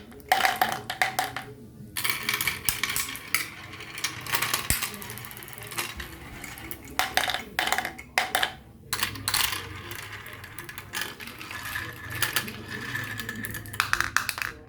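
Marbles rolling and clattering down a marble run: a dense run of clicks and rattles as they strike the track and each other, with short pauses between bursts.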